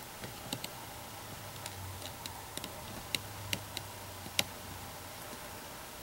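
Faint, irregular clicks and ticks from the plastic disks of a star finder being handled and turned, the sharpest a little over four seconds in, over a low steady room hum.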